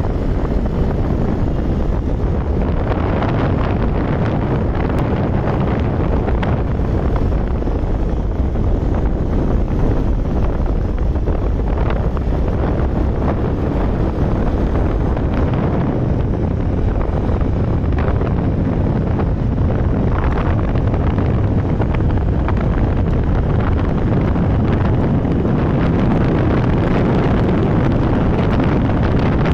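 Steady wind buffeting the microphone of a camera mounted on a Vespa VXL 125 scooter riding at speed, about 40 to 75 km/h, with the scooter's running and road noise beneath it.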